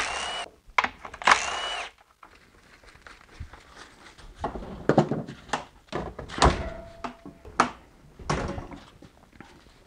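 Cordless driver whirring in two short runs near the start as hose clamps are driven loose. Then a series of knocks and clunks as the rubber hoses and plastic oil separator parts are handled.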